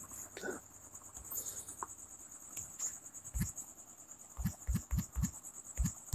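Crickets chirping in a steady high trill, with a run of soft low taps in the second half as fingers tap out digits on a phone's touchscreen keypad.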